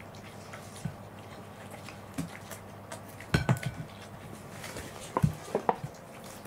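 Corgis eating watermelon wedges off plates: wet bites and chewing, with the rind knocking and scraping on the plates in two short clusters of clicks, about three and a half and five and a half seconds in.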